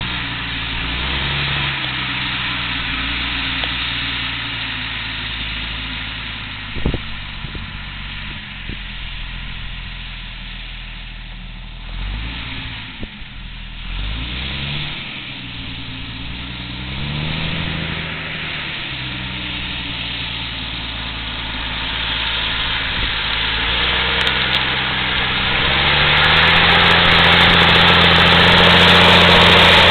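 Claas Xerion tractor's diesel engine running while pulling a 5 m stubble cultivator, its pitch dipping and rising a few times in the middle and growing louder over the last several seconds as the tractor comes closer.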